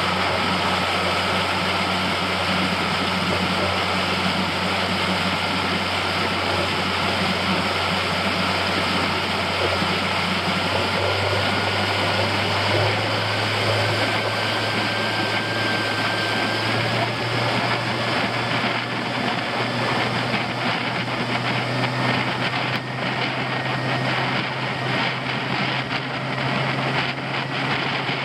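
Suzuki DF90A four-stroke outboard running at speed, a steady drone with a thin high whine, its pitch creeping up a little twice as the boat gathers speed. The rush of the wake and wind on the microphone run under it.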